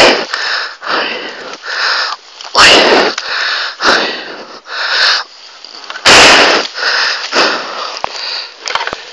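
A man breathing hard in loud, ragged gasps close to the microphone, about one breath a second, the loudest near the start and about three and six seconds in. He is winded after a hard fall onto a rock.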